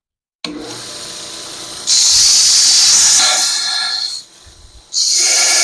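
Power sander grinding the steel knife blank cut from a sawmill blade down to a marked line. It runs more quietly at first, then gives a loud, high grinding hiss when the steel is pressed to it about two seconds in. It eases off for a moment near four seconds and then bites again.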